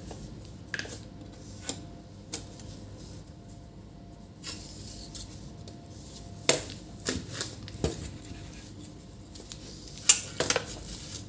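Scattered clicks and knocks of a monitor power-supply board, its power plug and its cables being handled on a workbench, with the two loudest knocks about six and a half and ten seconds in, over a faint steady hum.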